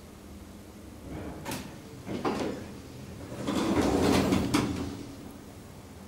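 Centre-opening stainless-steel elevator doors sliding open: a couple of clicks, then about a second and a half of sliding noise that ends in a click.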